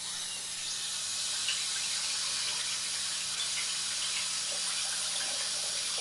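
Kitchen faucet turned on, cold water running into the sink in a steady stream.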